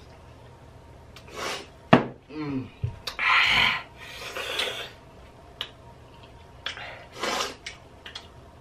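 A person hissing in and blowing out sharp breaths through the mouth several times while eating extremely hot chicken wings, with a short vocal sound and a few clicks from plates and handling.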